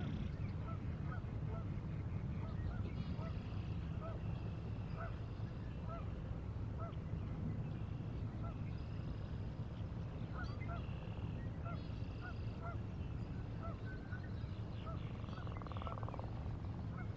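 Birds calling, many short repeated calls with honking among them, over a steady low rumble.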